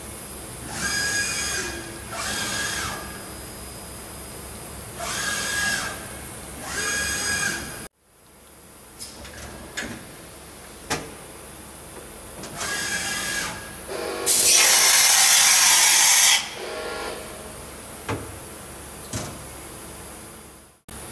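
Deckel Maho DMU 60T CNC machining center traversing its axes: several short whining runs of the axis drives, each about a second long, with a few sharp clicks between them. About two-thirds of the way in, a loud steady hiss lasts about two seconds.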